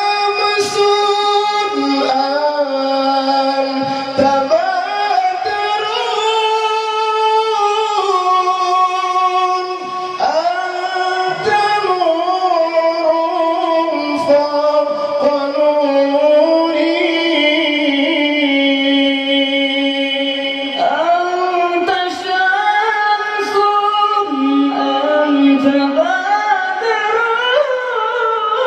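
Male voice singing sholawat in a high, ornamented melody through a microphone, holding long notes that slide and waver between phrases. Later a second male singer takes over the line, as in a duet.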